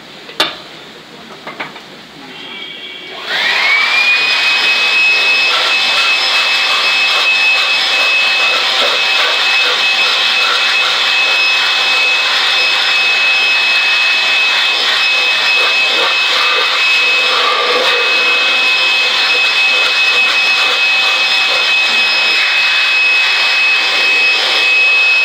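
Electric air blower switched on about three seconds in, its motor whining up quickly to a steady high pitch and then running with a loud rush of air, drying a freshly chromed flower pot. A sharp click comes shortly before it starts.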